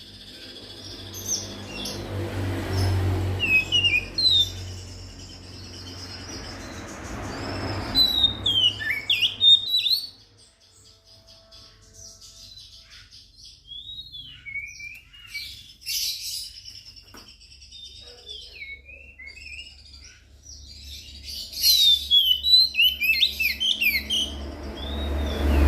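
Oriental magpie-robin (kacer) singing: a varied run of quick whistled notes that slide up and down, coming in several bursts with short pauses, busiest near the end, over a low background rumble.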